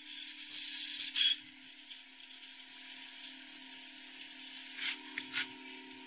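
Faint rubbing and rustling in a few short bursts, the loudest about a second in, over a steady low hum.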